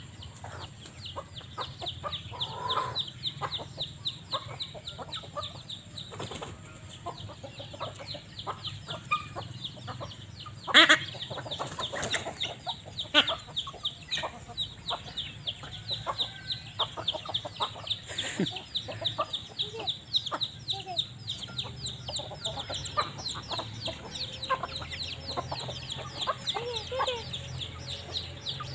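A flock of young chickens clucking and calling while they forage, over a constant rapid high-pitched chirping. There is one louder sharp sound about eleven seconds in.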